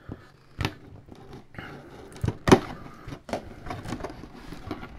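Hands opening a cardboard box by slitting and peeling its seal tape: cardboard and tape scraping and rustling, with a few sharp clicks, the loudest about two and a half seconds in.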